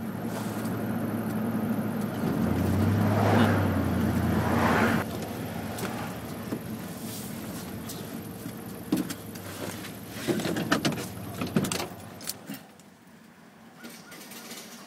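1989 GMC Sierra pickup's engine running, the revs rising for a few seconds about two seconds in and then settling. A handful of sharp clicks and knocks come around ten seconds in, and the engine sound falls away about twelve seconds in.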